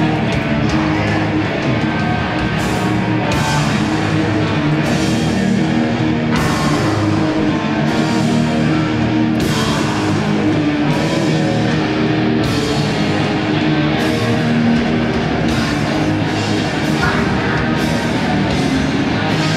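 Hardcore punk band playing live: loud distorted electric guitars, bass and a drum kit, with cymbal crashes every second or two.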